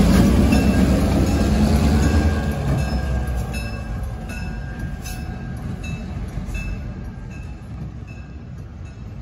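Diesel locomotive of a passing train: a loud low engine rumble in the first two seconds or so that then fades away, leaving a faint regular clicking about twice a second.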